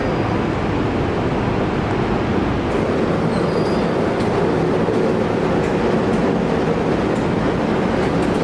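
Electric locomotive moving slowly alongside passenger carriages at a station platform, a steady running rumble with a brief faint high squeal a little after three seconds in.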